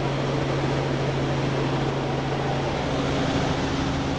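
Helicopter in flight heard from inside the cabin: a steady, noisy drone of engine and rotors with a strong low hum.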